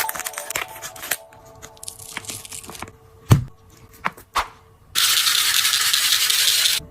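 Handling of craft materials: a few light taps, a sharp knock, then a loud, steady tearing or hissing noise for just under two seconds that cuts off suddenly.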